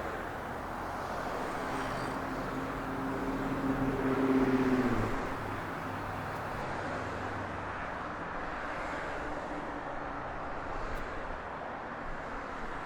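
Steady road traffic noise, with one vehicle's engine tone rising in pitch and growing louder over a few seconds, peaking about four and a half seconds in, then dropping away abruptly.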